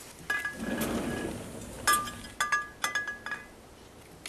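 A puppy eating from a metal food bowl, knocking it so it clinks and rings briefly about five times.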